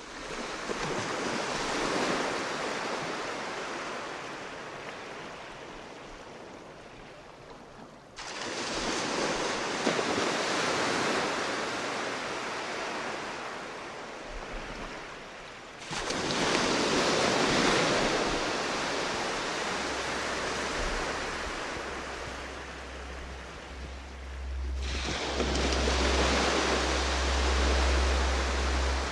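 Ocean surf: a rushing wash of waves that surges in suddenly about every eight seconds and slowly dies away, with a low rumble growing under it in the last third.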